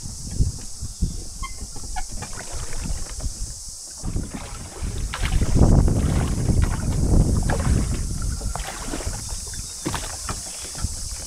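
Shallow water sloshing and lapping against boat hulls, with wind gusting on the microphone. The rumble swells for a few seconds in the middle.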